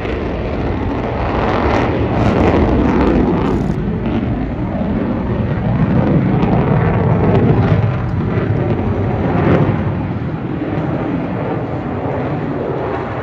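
An aircraft flying overhead: a loud, continuous rushing engine noise with a deep rumble that swells and eases several times as it passes.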